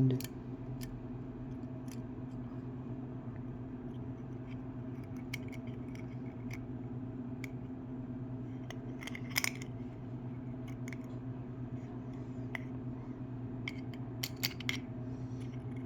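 Small metal clicks and scrapes from a Zippo lighter's parts being handled and fitted back together, the sharpest about nine seconds in and a cluster a little before the end. A steady low hum runs underneath.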